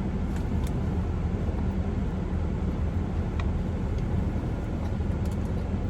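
Steady low hum and rumble of a car's air conditioning running in the cabin, with a few faint clicks.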